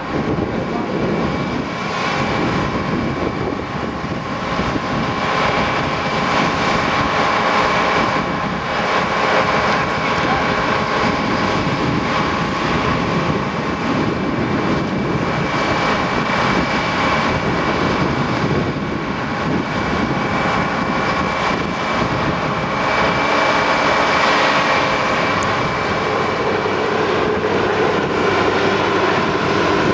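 Engines and machinery of a rail-lifting work train running steadily, with steady whining tones over the engine noise. Near the end the high whine fades and a lower one takes over.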